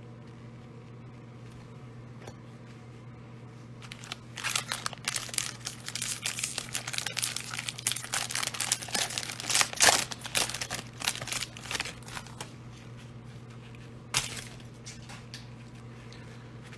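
Foil-lined plastic wrapper of a football card pack being torn open by hand, crinkling continuously for about eight seconds starting about four seconds in, with one more short crinkle near the end.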